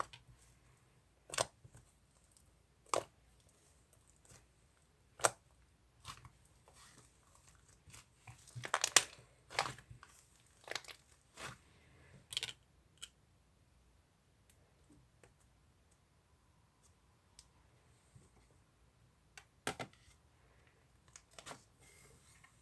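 Sticky whipped-cream slime being squeezed and stretched by hand, giving sharp sticky pops and crackles at irregular intervals, with a quick run of them near the middle.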